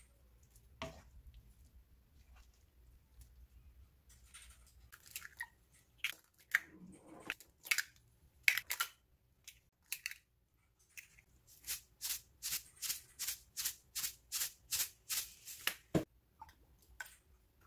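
Eggs cracked one after another into an earthenware pot: sharp cracks and taps of eggshell. A quick, even run of light ticks follows, and a single low knock comes near the end.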